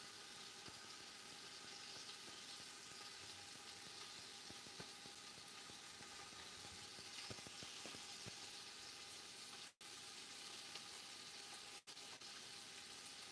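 Sliced onions sizzling faintly in oil in a stainless steel pot over a medium gas flame, a gentle sauté with scattered small pops as they soften toward translucent. The sound cuts out briefly twice near the end.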